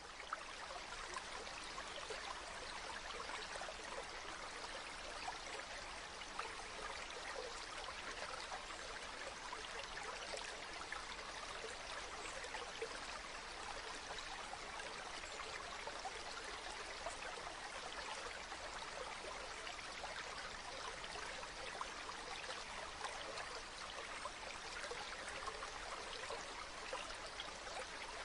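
Natural running water, a stream flowing and splashing steadily, a constant rushing hiss with fine bubbling detail and no breaks.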